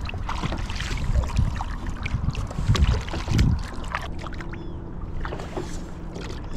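Double-bladed kayak paddle dipping and pulling through the water, with splashes and drips off the blade, over a low rumble of wind on the microphone.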